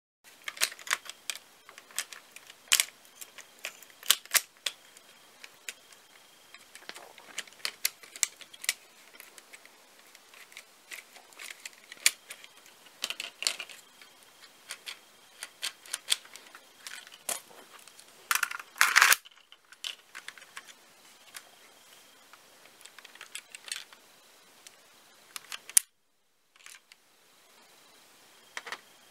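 Plastic LEGO Technic parts of a brick-built gun clicking and clattering as it is handled and its mechanism is worked, in irregular sharp clicks with a longer rattle about two-thirds of the way through.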